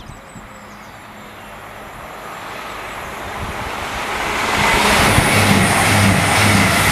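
East Midlands Trains Class 222 Meridian diesel multiple unit approaching at speed and passing close by. Its rush of wheel-on-rail and air noise builds steadily to its loudest about five seconds in, with a pulsing low engine hum under it as the cars go past.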